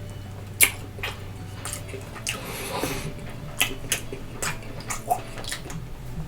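A person chewing food close to the microphone, with irregular wet mouth clicks and smacks, the loudest about half a second in.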